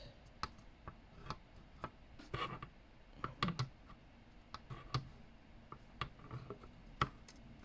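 Irregular light plastic clicks and taps as a laptop's bottom cover is handled and slid back into place.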